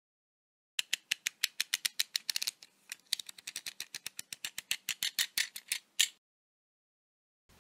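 Logo-animation sound effect: a quick run of sharp, crisp clicks, about seven a second, with a brief rapid flurry a second or so in and a short pause. It ends on one louder click before cutting to silence.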